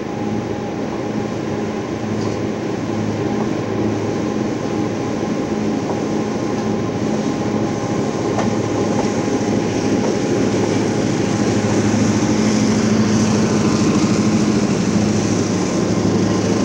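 Four Lehigh Valley end-cab diesel switchers hauling a loaded coal train, their engines running steadily and growing louder as they pass close by. In the second half the rolling of the coal hoppers adds a rising hiss of wheels on rail.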